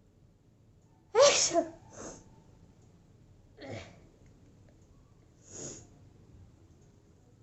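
A woman sneezes once, loudly and abruptly, about a second in, followed by three short, quieter breath sounds spread over the next few seconds.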